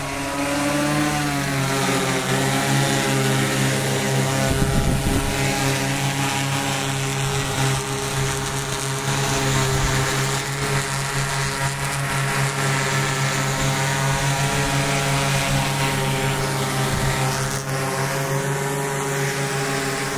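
Multirotor agricultural spraying drone flying low, its propellers giving a loud, steady hum; the pitch shifts briefly about a second in. A short low rumble cuts in around five seconds in.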